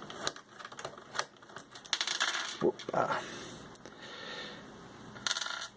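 Small hard metal parts clinking and rattling as they are handled: scattered sharp clicks with a few brief rattles, made while a computer power supply's fuse is got at for testing.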